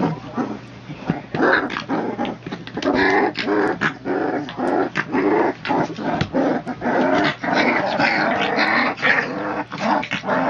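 Three-week-old pit bull puppies growling in play as they wrestle, many short overlapping calls one after another.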